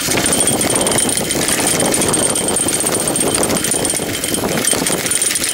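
Mountain bike riding fast down a dirt singletrack: a steady rumble and rapid rattle from the tyres on the trail and the bike shaking over the bumps.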